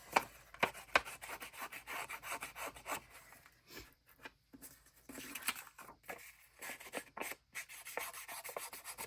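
Ink being rubbed onto paper edges from a stamp pad in many short, quick strokes.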